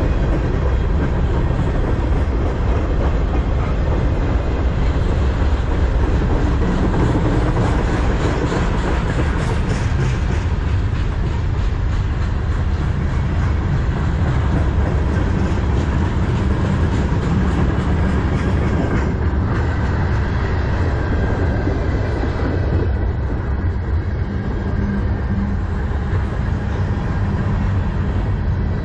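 Freight cars of a manifest freight train rolling past close by: a loud, steady rumble of steel wheels on the rails, with repeated clacks as the wheels cross the rail joints.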